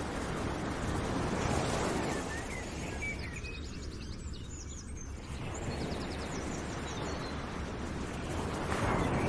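Outdoor nature ambience: birds chirping over a rushing noise that swells and fades, with the chirps clustered in the middle.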